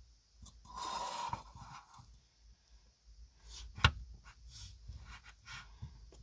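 Cloud slime being handled with the hands: a crackly rubbing noise about a second in, then scattered small clicks and one sharp tap a little before four seconds.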